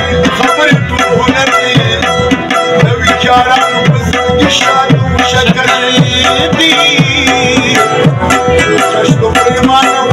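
Live Pashto folk music: harmoniums hold sustained chords under quick, steady tabla drumming, and a man sings along in a wavering melodic line.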